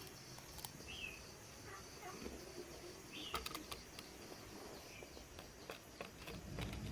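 Quiet ambience with scattered light clicks and taps, a few short chirps, and a steady high hiss.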